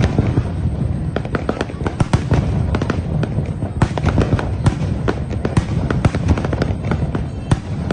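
Fireworks display: a dense, irregular barrage of sharp bangs and crackles over a continuous low rumble.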